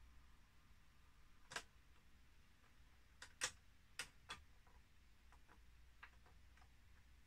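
Small sharp plastic clicks and ticks from the switch parts of a Philips D8254 radio cassette player being fiddled into place by hand. One click comes about a second and a half in, then a quick group of four a little past three seconds, then a few fainter ticks.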